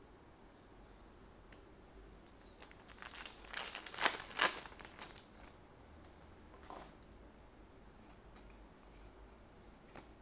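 A foil trading-card booster pack being torn open, crinkling for about three seconds a couple of seconds in, followed by a few light rustles as the cards are handled.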